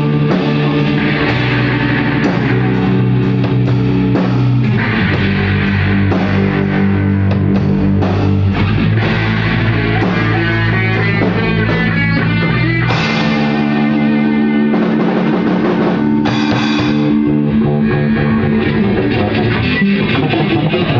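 A band playing rock music together: guitars sounding sustained chords that change every few seconds, over a drum kit.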